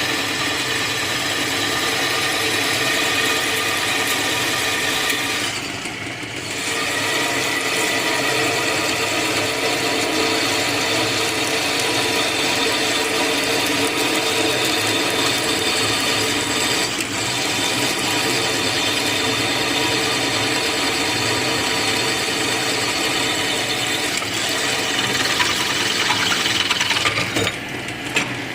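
Drilling machine running steadily with a whining motor and gear noise as it drills, easing off briefly about six seconds in.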